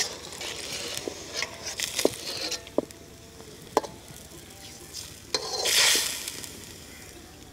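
Metal spatula stirring and turning a whole chicken in sizzling liquid in an iron karahi, with a few sharp clinks of metal on the pan. A louder burst of sizzling hiss comes about two-thirds of the way through.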